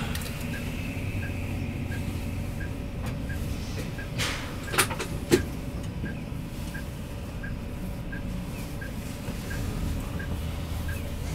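Cabin running noise of a Hino S'elega highway coach moving slowly in city traffic: a low steady engine and road hum with a soft, even tick about one and a half times a second. Near the middle comes a brief hiss and then two sharp clicks.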